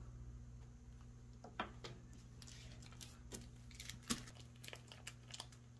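Faint, scattered clicks and taps of a metal spoon against a plastic mixing bowl and on the table top, over a steady low hum.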